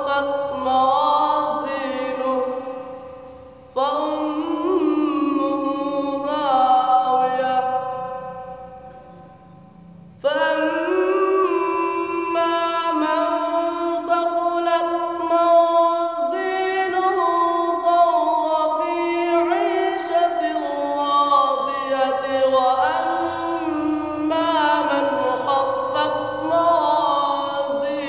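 A boy's voice reciting the Quran in melodic tajweed style, with long held, ornamented notes. The recitation trails off and breaks twice for breath, restarting about four and ten seconds in.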